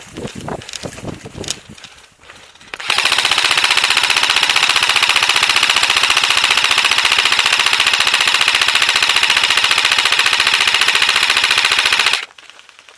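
Airsoft rifle firing on full auto in one long burst of about nine seconds, a very fast, even rattle of shots that stops abruptly. A few scattered clicks and knocks come before it.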